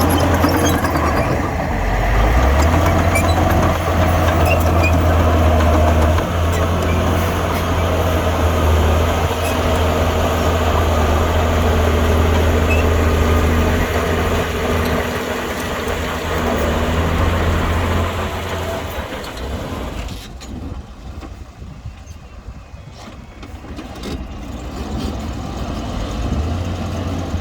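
Diesel engine of earth-moving machinery running under load with a deep, steady hum. It fades and thins out about two-thirds of the way through, then builds again near the end.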